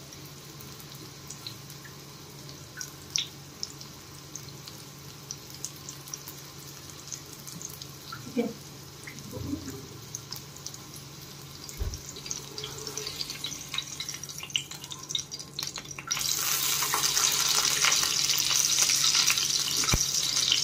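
Quiet kitchen handling over a low steady hum. About sixteen seconds in, a chicken chapli kabab goes into hot oil and loud, crackling sizzling starts abruptly and keeps on.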